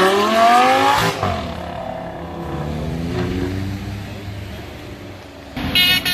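Audi R8 Spyder accelerating hard away: the engine note climbs steeply, breaks off sharply about a second in, then climbs again more faintly as the car pulls away into the distance. A short, loud sound cuts in near the end.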